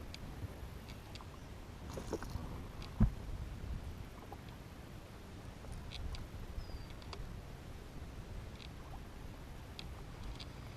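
Small fishing boat on the water: a steady low rumble with scattered light clicks and knocks, and one sharp thump about three seconds in.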